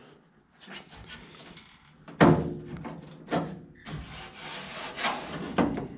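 Hand handling a steel body panel on a 1955 Chevy body: a sharp metallic clunk that rings briefly about two seconds in, then a few lighter knocks and a scraping rub of skin on sheet metal.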